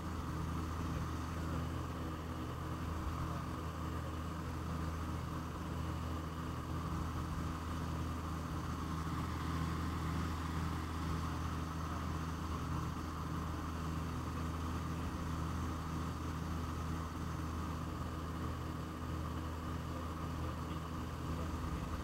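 Twin piston engines of an Aero Commander L-26B in cruise flight, heard from inside the cockpit as a steady low drone with airflow hiss over it.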